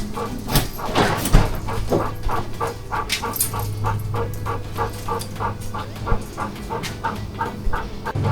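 A dog yapping over and over, about three to four short barks a second, over a low steady engine hum.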